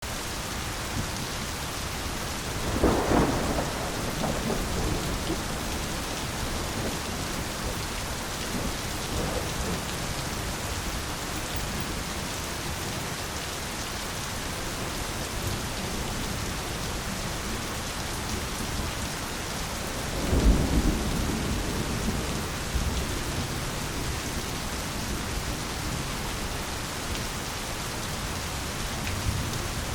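Steady heavy rain falling on foliage, with thunder rumbling twice, about three seconds in and more strongly about twenty seconds in.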